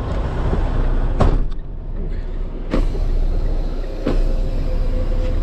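Inside a Freightliner semi-truck's cab, the diesel engine and drivetrain run with a steady low rumble. Three sharp clicks or knocks come about one, three and four seconds in.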